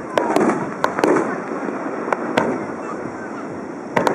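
Aerial fireworks shells bursting in a run of sharp bangs: several in the first second, two more about two seconds in, and another close pair near the end.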